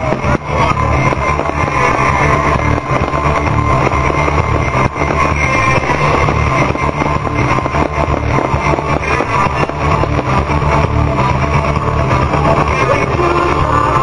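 Loud rock music with guitar and drums playing continuously: the soundtrack of a fireworks show.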